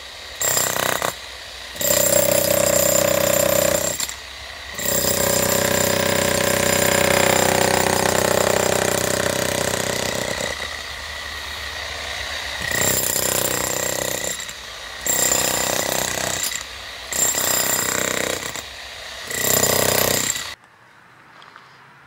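Bosch GSH 11E electric demolition hammer breaking up a concrete driveway slab, hammering in runs of several seconds with short pauses between, then stopping abruptly near the end.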